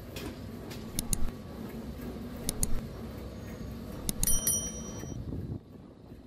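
Sharp metallic clinks at a tandoor oven, in pairs about a second and two and a half seconds in, then a quick cluster near four seconds that rings briefly like a small bell, over a steady low rumble from the hot oven that drops away about a second before the end.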